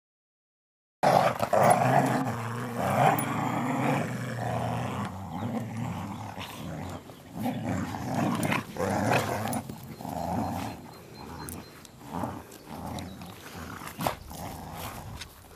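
Two dogs growling in play as they tug on a rope toy, one of them a Brittany, starting about a second in.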